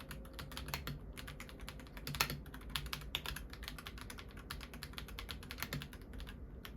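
Akko Dracula 75% mechanical keyboard being typed on in a keyboard sound test: a rapid, continuous stream of key clicks, many strokes a second.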